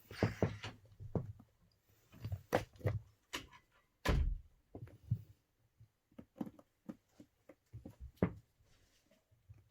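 Scattered knocks, taps and thumps from objects being handled, the loudest a heavy thump about four seconds in.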